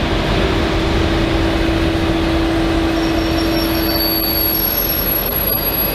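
V/Line N-class diesel locomotive and its passenger carriages rolling past close by, with a steady low engine drone that drops away about two-thirds of the way through. Thin high wheel squeals join from about halfway.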